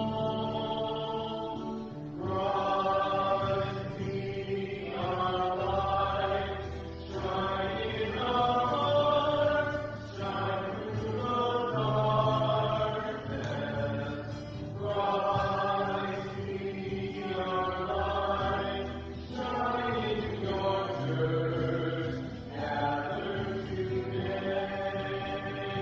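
Slow sung hymn or chant in phrases of a few seconds, each followed by a short pause, over held low notes.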